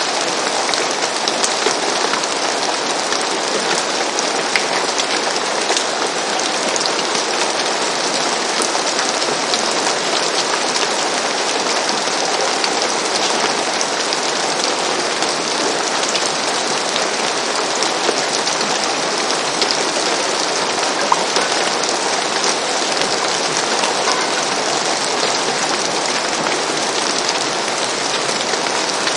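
Steady rain falling on a roof, a dense even hiss with countless small drop patters.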